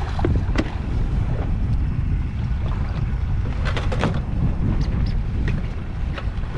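Steady wind buffeting the microphone on a small boat at sea, with water slapping the hull. A few short, sharp sounds break through, the strongest around the middle.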